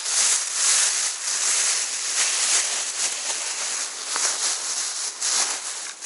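Continuous crackly rustling in uneven surges, most of it high-pitched.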